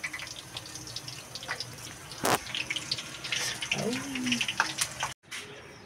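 Potato pieces deep-frying in hot oil in a karahi, a steady crackling sizzle, with a sharp knock about two seconds in.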